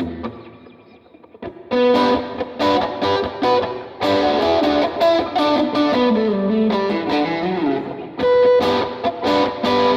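Electric guitar, a Fender Stratocaster with ceramic pickups, played through an amp modeller with heavy distortion. After a quiet opening second or so come loud struck chords and a run of notes stepping down in pitch near the middle.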